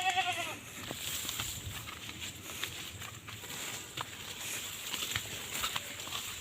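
A goat bleats once at the very start, a short wavering call that trails off within about half a second; after it come only faint scattered clicks and rustles.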